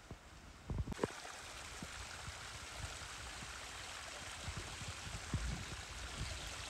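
Water trickling and running over rock, a steady hiss that comes in about a second in, with scattered low thuds beneath it.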